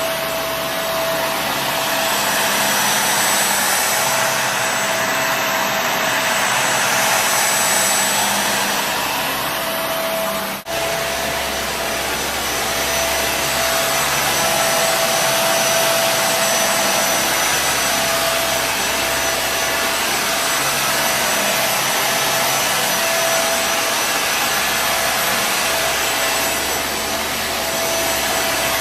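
Kenmore Intuition bagless upright vacuum cleaner running: a steady motor and airflow rush with a steady whine, swelling and easing slightly. There is a momentary break about ten seconds in.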